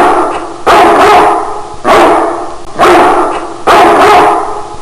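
A dog barking loudly and repeatedly, about one bark a second, each bark trailing off in a long echo.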